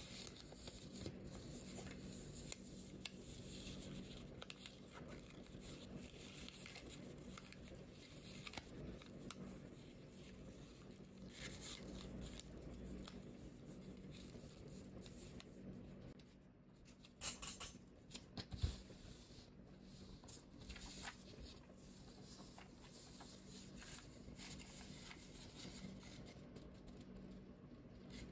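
Faint rustling, sliding and creasing of origami paper being handled and folded, with a cluster of small sharp ticks about two-thirds of the way through, over a faint steady hum.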